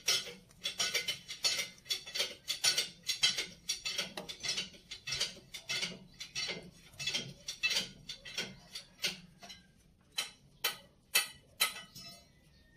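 Quick, irregular clicks and taps of fingers working at a dump truck's metal hydraulic control valve, about two to three a second. They thin out near the end to a few louder single clicks.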